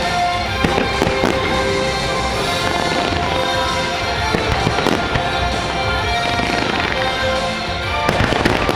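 Fireworks bursting in a run of sharp bangs and crackles over loud sustained music from the show's soundtrack, with thicker clusters of bursts about a second in, near the middle and near the end.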